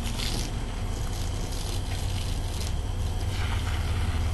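Garden hose water jet hissing and splashing on the lawn in several bursts as the spray sweeps across the grass, over a steady low rumble.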